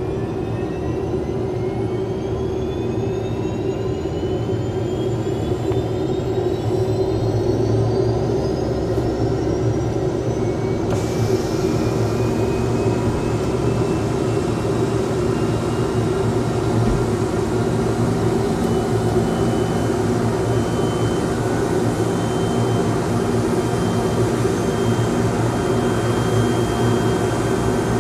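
MD 500-series light helicopter's turboshaft engine running up on the ground. Rising whine tones climb over the first ten seconds or so, then settle into a steady high whine over a constant drone as the rotor turns before lift-off.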